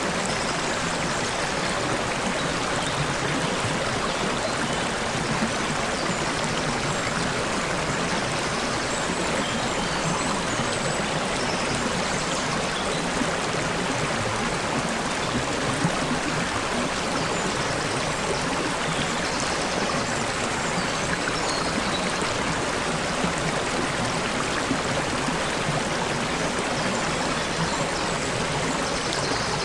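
Stream water babbling and gurgling steadily, with faint high bird chirps here and there.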